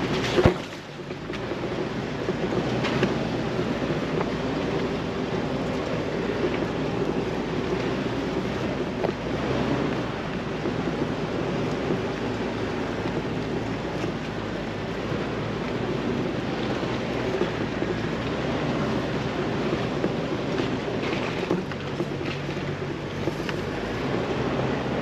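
Jeep Wrangler TJ crawling down a rough off-road trail: a steady engine drone mixed with tyre and gravel noise, with a sharp knock about half a second in.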